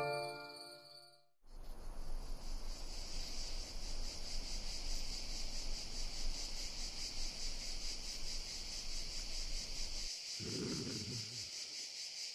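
A steady, high-pitched, finely pulsing insect chirring, as from cicadas or crickets, begins after a melody fades out in the first second and a half. A short low sound comes in about ten and a half seconds in.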